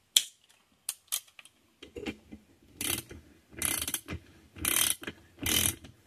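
Socket ratchet wrench clicking as it runs down the nut on the top cover of a 1949 Deming Marvelette piston pump, after a few sharp metal clinks as the socket goes on. The ratchet's back-strokes come in a steady rhythm about once a second; the threads are too stiff to run the nut on by finger.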